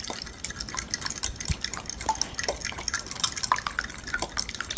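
A metal fork beating raw eggs in a ceramic bowl, its tines clicking quickly and irregularly against the bowl.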